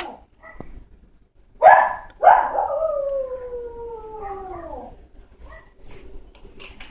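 Dog howling while left alone, calling for its absent owner: a short loud cry, then one long howl that slides down in pitch and fades out about five seconds in.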